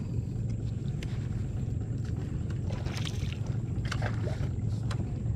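Small boat's motor running steadily at low speed, with faint rustling and light splashes from a fishing net being hauled in by hand over the side.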